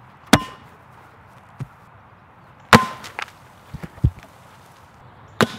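A plastic Diet Coke and Mentos bottle rocket thrown down onto the ground, hitting with sharp knocks: three loud hits with a brief ringing after the first two, and a few lighter taps in between. The rocket fails to launch.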